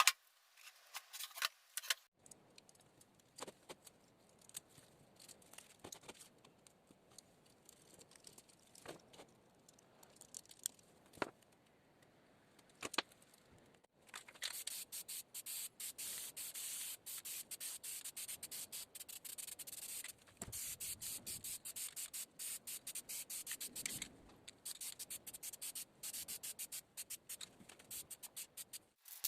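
Scattered taps and clicks of handling, then rapid back-and-forth rubbing strokes by hand on a part, in three runs with short breaks.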